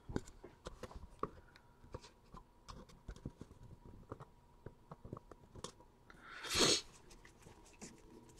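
Trading card packs being handled and torn open: scattered light clicks and taps of cards and wrappers, with one louder crinkling tear of a pack wrapper about six and a half seconds in.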